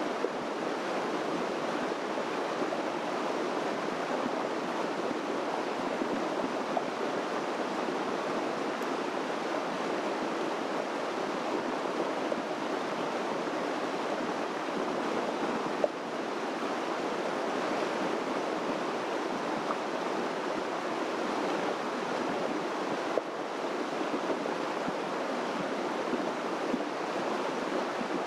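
Steady rush of running water, even and unbroken, with a couple of faint clicks.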